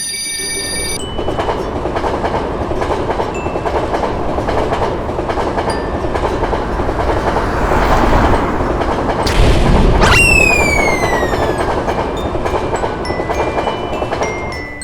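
A train passing a level crossing, its wheels clicking over the rail joints, louder towards the middle. About ten seconds in a train horn sounds, its pitch falling as it goes by. A steady ringing tone stops about a second in.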